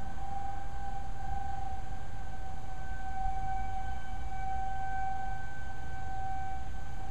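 Outdoor civil-defense siren sounding a tornado warning: one steady, unwavering tone that swells slightly and eases back, with a low rumble beneath it.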